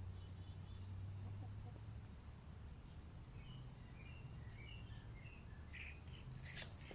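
A quick run of short bird chirps at shifting pitches, over a steady low hum.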